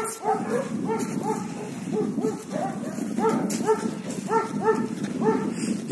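German Shepherd dog yelping and barking over and over in short, rising-and-falling yips, about three a second.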